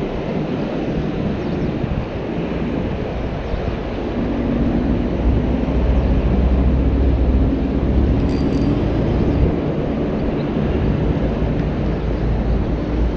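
Wind buffeting the microphone: a steady rush with a heavy low rumble that grows stronger about five seconds in and eases again a few seconds later.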